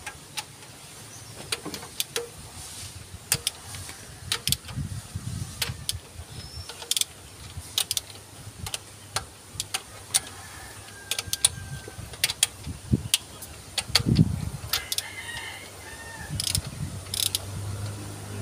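A hand ratchet and socket working on the camshaft bearing-cap bolts of an open engine: sharp metallic clicks and clinks, irregular, about one or two a second, with a duller knock about fourteen seconds in.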